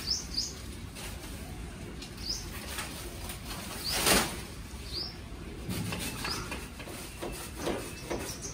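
Monstera leaves and stems rustling and crackling as the plant is handled and pruned, with a louder rustle about four seconds in. Small birds give short rising chirps now and then.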